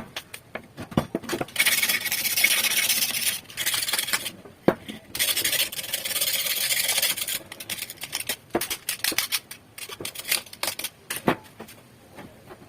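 Abrasive rubbing on a rusty metal gun part, in two long strokes of about two seconds each with a shorter one between, amid scattered clicks and knocks of the parts being handled.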